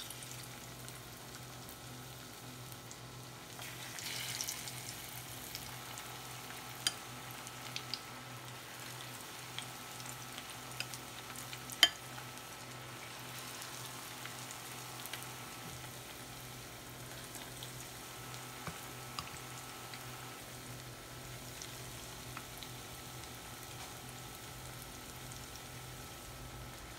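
Marinated fish pieces shallow-frying in hot oil in a pan: a steady sizzle that swells a few seconds in, with sharp pops of spattering oil now and then, the loudest about twelve seconds in.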